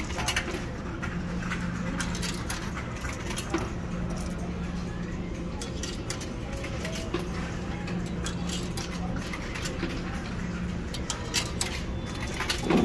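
Loose coins clinking in a hand and dropping one after another into a vending machine's coin slot, many small metallic clicks, over a steady low hum.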